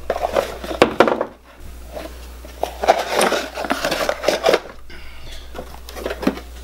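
Rustling of thin plastic wrapping and packaging, with scattered knocks and clicks as a boxed sound machine and its parts are unpacked and set on a table.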